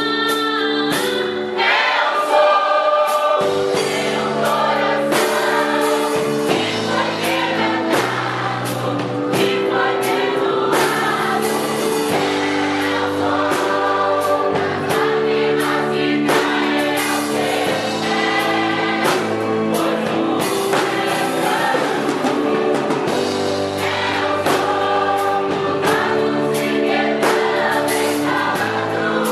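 Gospel praise music: a group singing together over a band with bass and a steady beat.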